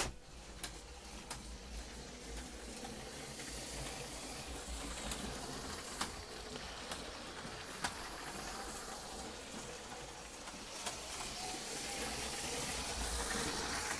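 LEGO 9V train running around its track: a steady whirring hiss of the motor and wheels that slowly grows louder, with sharp clicks at irregular times.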